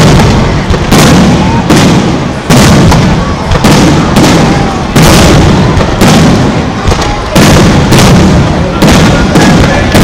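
Aerial firework shells bursting in quick succession: about a dozen loud booms, one every second or less, each trailing off before the next.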